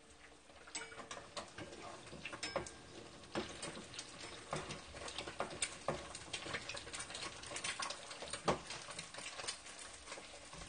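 Eggs frying in oil in a frying pan: faint, irregular crackling and popping of spattering oil over a low sizzle.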